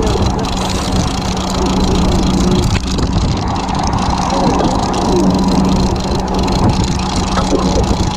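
Fishing boat's engine running with a steady low hum, with faint voices in the background.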